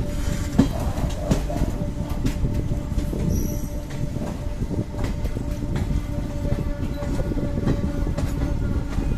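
Indian Railways express passenger coach running, heard from its open door: a steady wheel-on-rail rumble with irregular clacks as the wheels cross rail joints and points, and a faint steady whine under it.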